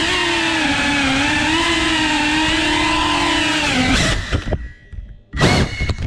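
FPV quadcopter's brushless motors and propellers buzzing with a high whine, the pitch wavering with the throttle. About four seconds in the buzz drops and cuts out, and short, uneven bursts follow as the motors spin up again while the drone tumbles against a table leg.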